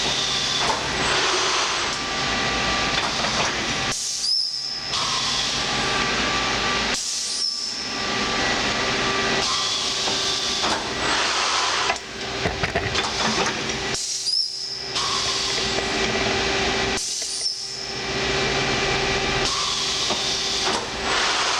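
Sencorp 2500 roll-fed thermoformer running: a steady hiss of compressed air from its pneumatic cylinders and valves over mechanical running noise, with a few steady tones. It is broken by short lulls every three to four seconds.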